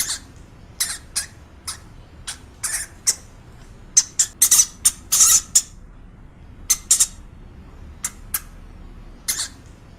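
A small animal giving short, high-pitched squeaks, about twenty in irregular bunches, loudest in a quick cluster around the middle.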